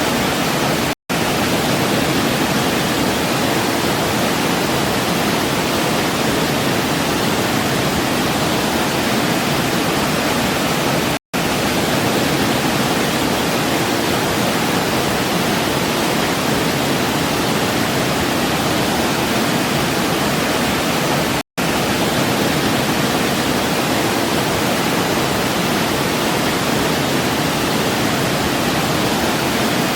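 Waterfall cascading with a steady, dense rush of water. The sound cuts out for an instant three times, about ten seconds apart.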